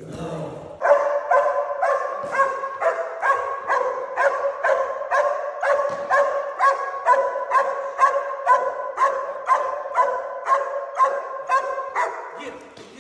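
Trained protection dog barking on a leash in a steady run, about two evenly paced barks a second, starting about a second in and keeping on.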